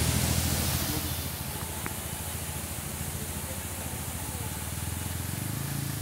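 Steady rushing hiss of a waterfall, with a motorcycle engine running at low revs underneath. The engine hum eases about a second in and grows stronger again near the end.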